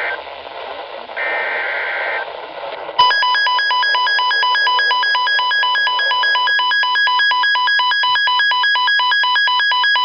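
Weather radio receiver: two short warbling SAME data bursts over radio hiss, the digital code that ends a broadcast warning. About three seconds in, the receiver's alert alarm starts, a loud electronic beep pulsing several times a second.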